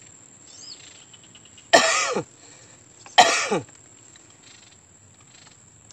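A person coughing twice, about a second and a half apart, each cough short and loud.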